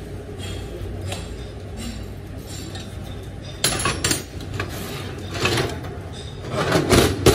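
Metal clinking of a wrench and steel bolts against a turbocharger housing while it is fastened together by hand. Three clusters of clinks come about halfway through, a little later, and loudest near the end, over a steady low hum.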